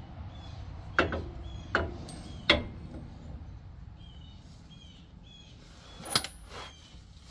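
Sharp knocks of a steel adjustable track bar bumping against the truck's axle and frame as it is worked into place under the front end: three in quick succession about a second in, one more near the end. Small birds chirp repeatedly throughout.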